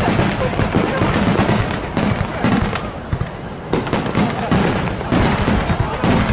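Aerial fireworks shells bursting in rapid succession, many bangs close together, with a brief lull about three seconds in before the bursts pick up again.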